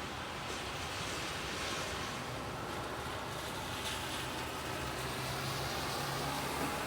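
Steady rain with a car passing on the wet street: the hiss of its tyres on the wet road and a low engine hum swell toward the end.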